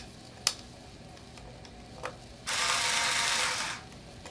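Black & Decker cordless electric screwdriver whirring once for just over a second, about two and a half seconds in, driving a small screw. A few light clicks of the bit and screws being handled come before it.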